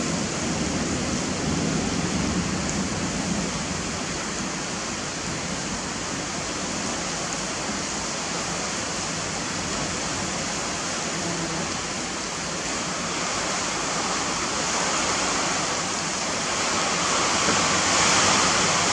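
Heavy rain pouring down, a steady rushing hiss that grows a little louder near the end.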